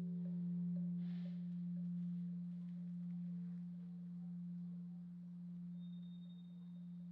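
Large Korean bronze temple bell (beomjong) ringing down after a strike. A single deep hum slowly fades with a gentle, slow pulsing in its loudness.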